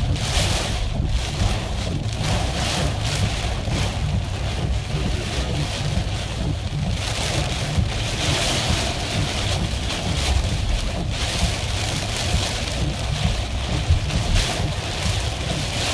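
Heavy hurricane rain and gusting wind beating on a moving car, heard from inside the cabin, over a steady low rumble of the car on the wet road. The hiss of rain and wind swells and fades in waves.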